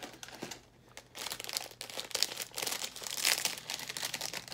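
Foil snack wrapper of a Pepero pack crinkling as it is handled and pulled open, starting about a second in and going on in dense crackles.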